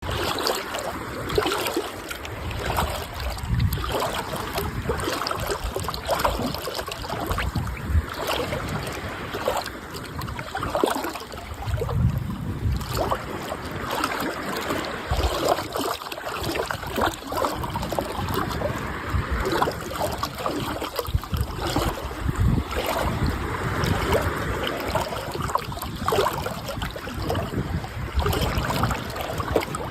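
Sea water washing and splashing, an uneven continuous surge of water noise with low rumbling swells coming and going.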